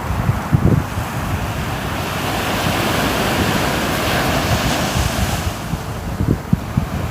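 Sea waves surging onto the shore. A wash of surf builds from about a second and a half in and recedes after about five seconds, with wind buffeting the microphone near the start and the end.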